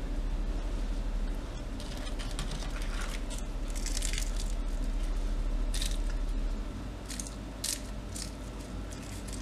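The crisp crust of oven-baked potato sticks crackling and crunching in short bursts as the sticks are torn apart by hand, over a low hum that stops about two-thirds of the way in.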